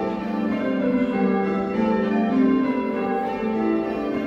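Ring of six church bells, a 1978 Whitechapel six with its tenor in G, ringing call changes. The bells strike one after another in a steady rhythm, their tones overlapping, heard from the ringing chamber below.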